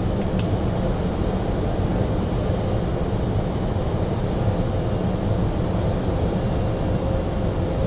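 Steady Airbus A320neo flight-deck noise in flight: a low rumble and hiss with a faint steady tone, and one brief click just after the start.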